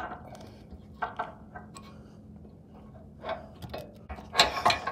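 Scattered metal clinks and knocks of bolts, spacers and tools being handled as a rack-and-pinion steering rack is fitted to a front crossmember, with a louder burst of several knocks near the end.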